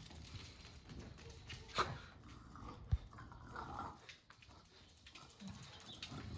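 A French bulldog making quiet sounds as it fetches and mouths a rubber ball, with two sharp knocks about two and three seconds in.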